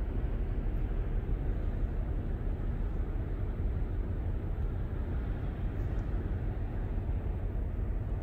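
Steady, low outdoor rumble with no distinct events.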